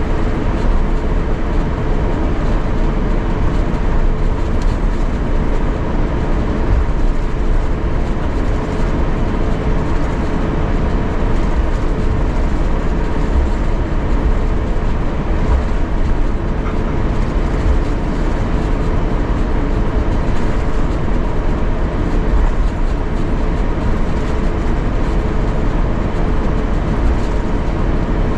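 Cabin noise inside an Airbus A350-900 on the ground before takeoff: a steady, even rumble with a constant two-tone hum running through it.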